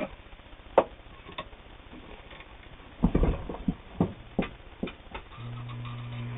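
A few sharp clicks and knocks as the sewing machine and fabric are handled, then, about a second before the end, the Bel Air Precision De Luxe sewing machine's 1.5-amp motor starts a steady low hum.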